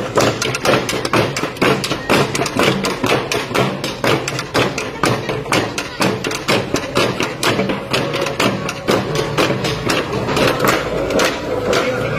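Bamboo tubes and wooden shields struck with sticks by a group of street dancers, a fast, steady clatter of many overlapping knocks.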